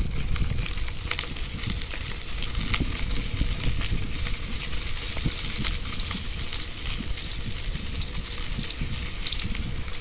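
Bicycle ridden over a dirt track covered in dry leaves: the tyres crackle and crunch on the leaves over a steady low rumble from the ride.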